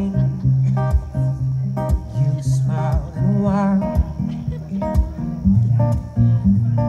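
Live band music: acoustic guitar and electric bass over a drum kit, with drum hits about once a second. A wavering voice is briefly heard about three seconds in.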